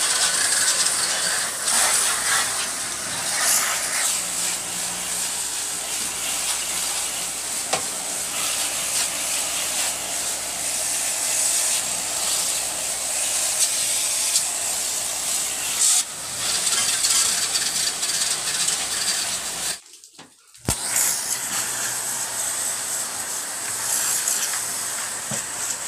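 High-pressure water jet from a pressure-washer wand spraying the outdoor aircon condenser coil, a steady hiss of spray that breaks off for about a second some twenty seconds in and then resumes.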